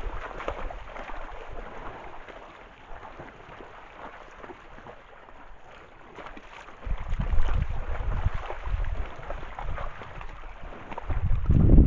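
Elk wading in shallow pond water close to the microphone: sloshing and splashing of legs and hooves, with low buffeting noise on the microphone that grows louder about seven seconds in and again near the end.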